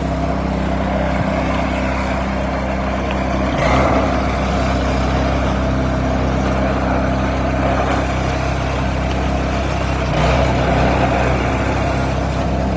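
Snowblower's small gasoline engine running steadily, with brief louder swells about four and ten seconds in.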